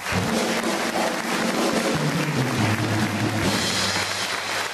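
Studio band music with drum kit and a moving bass line, over audience applause.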